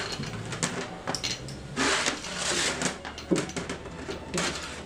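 Forged metal rings clinking and clattering as they are handled and set down one by one at an inspection bench, in irregular knocks over a steady low machine hum.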